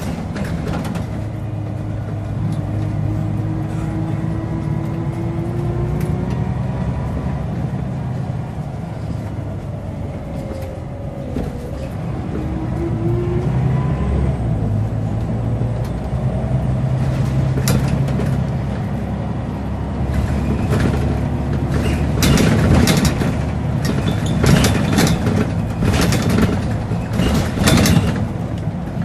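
Scania L94UB bus heard from inside the saloon while under way: the diesel engine drones and the ZF gearbox whines, the whine rising and falling with speed. In the second half the bodywork and fittings clatter and rattle repeatedly over the road, loudest near the end.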